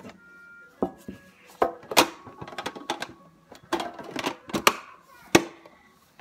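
A Shopkins toy vending machine being handled and closed up: irregular clusters of small clicks and knocks, with one sharp snap about five seconds in.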